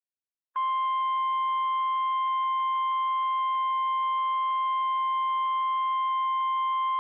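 NOAA Weather Radio's 1050 Hz warning alarm tone: one steady, unbroken tone that starts about half a second in, after a brief silence. It is the alert tone that announces a warning message, here a flash flood warning.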